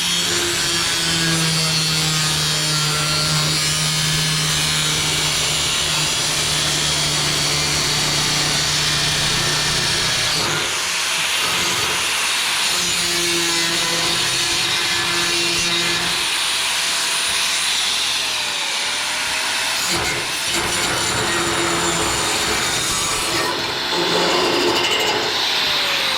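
Electric power tool cutting sheet metal, running steadily with a few short dips and changes in its motor pitch as the cut goes on.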